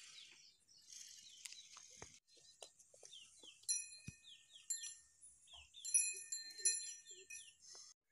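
Small bells chiming: several clear ringing strikes in clusters through the second half.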